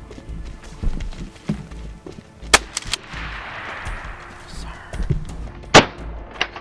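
Two loud shotgun blasts about three seconds apart, each trailing off in a rolling echo, over background music.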